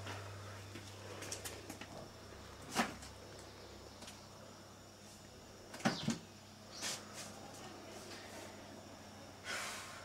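A few short, light knocks and bumps of things being handled in a small room, the strongest a close pair about six seconds in, with a brief rustle near the end.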